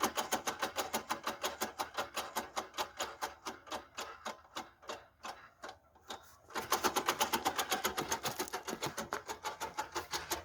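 The raised rear right wheel of a VAZ 21099 is spun by hand, giving a rapid, regular clicking scrape, several strikes a second. It slows as the wheel coasts and stops about six and a half seconds in, then starts again fast when the wheel is spun again. The owner takes this grinding from the rear drum brake for worn-out brake shoes, or a part such as a spring that has come loose inside the drum.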